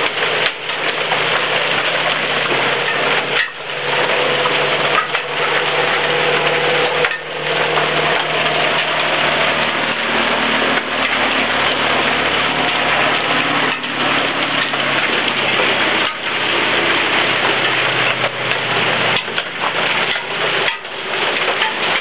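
Heavy rain and hail pelting down in a thunderstorm, a loud, dense, steady hiss with a low hum underneath.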